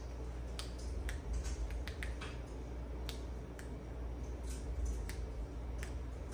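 Button of a small handheld Bluetooth camera remote being pressed again and again: about a dozen short, sharp clicks at irregular intervals, over a low steady hum.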